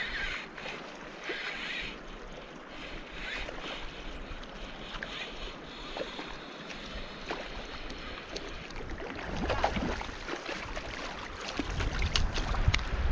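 Rushing mountain-river water with wind on the microphone, with a steady noisy wash and small splashes. A deeper rumble grows louder over the last few seconds.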